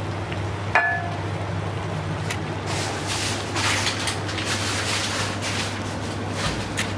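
A pan of chickpea curry simmering, bubbling and hissing softly over a steady low hum. A single short ringing clink comes about a second in.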